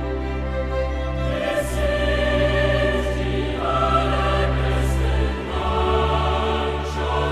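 Music with slow, held chords over a deep bass, changing chord about every two seconds, with a short high hiss roughly every second and a half.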